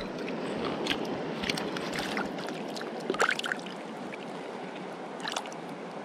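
Mountain stream rushing steadily, with a few short close splashes in the shallow water of the landing net, the loudest about three seconds in.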